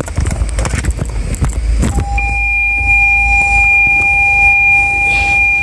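A few clicks and knocks of handling in the cab, then, about two seconds in, a Toyota Land Cruiser's in-cabin warning buzzer comes on as one steady, unbroken two-pitch tone that holds to the end.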